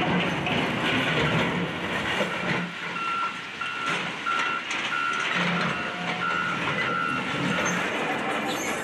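Heavy demolition machinery running, with a backup alarm beeping steadily from about three seconds in, roughly one and a half beeps a second. Under it the engines hum and debris clatters and scrapes.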